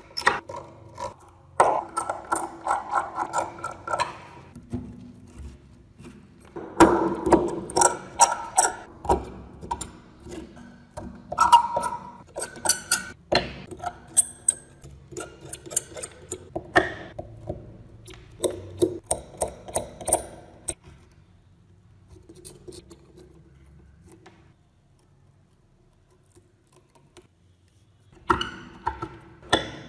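A small hand pick scraping and chipping thick rust crust off antique scissors, in runs of rapid scratching, cracking strokes. The work goes quiet for a few seconds near the end, then the scraping starts again.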